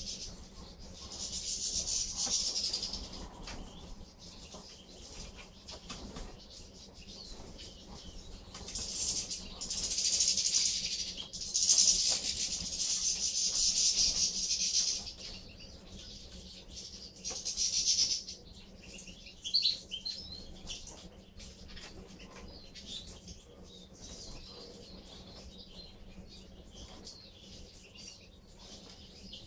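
A feeding flock of European goldfinches twittering, in several loud spells of dense high chatter with quieter single chirps between them, and some wing flutter as birds come and go.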